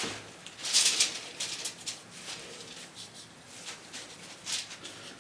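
Short rubbing and scuffing sounds of a finger working mould-release agent into a casting mould, in a few uneven strokes; the loudest is about a second in.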